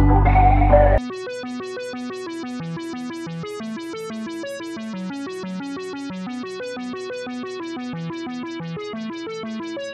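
Background electronic music: a louder passage with heavy bass cuts off about a second in, giving way to a steady run of quick, evenly spaced keyboard-like notes.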